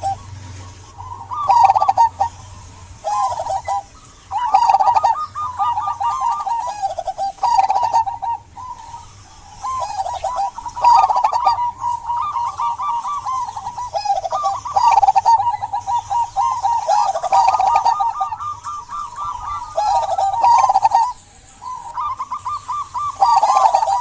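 Local zebra dove (perkutut) cooing: its bubbling, trilled coo phrases repeat one after another with short pauses between them.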